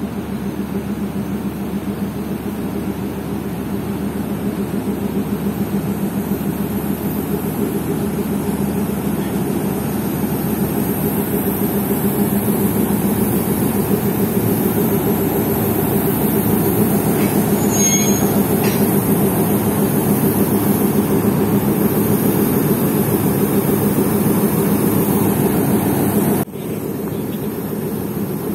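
Class M4 diesel-electric locomotive running as it rolls slowly alongside, its steady engine drone growing louder as it comes close. A brief high-pitched squeal sounds about two-thirds of the way through.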